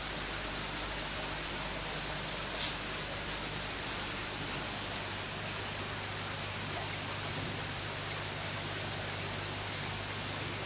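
Steady hiss of aquarium water and filter pump, with a low electrical hum under it and a couple of faint ticks about two and a half and four seconds in.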